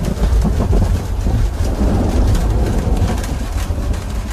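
Thunder rumbling low and continuously under steady rain, with raindrops striking a roof.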